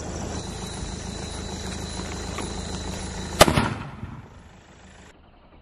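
Sony Fireworks 'Poland' sky shot, a multi-shot aerial firework cake, firing: a steady hiss with a few faint pops, then one sharp, loud bang about three and a half seconds in that dies away within half a second.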